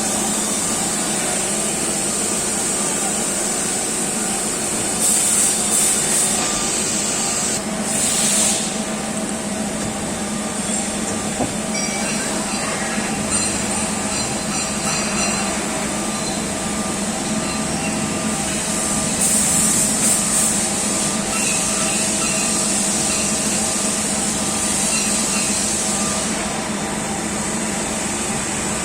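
Mori Seiki AL-2BM CNC lathe running: a steady machine hum with several held tones and a constant high hiss, broken by short, louder bursts of hissing at about five, eight and twenty seconds in.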